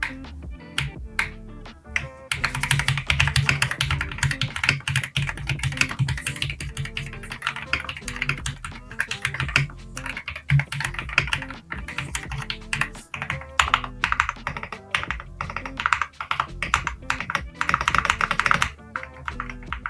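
Typing on a mechanical keyboard with factory-unlubricated Kailh Super Speed Red linear switches and thick PBT keycaps. A few separate key clacks come first, then fast, continuous typing from about two seconds in, with background music underneath.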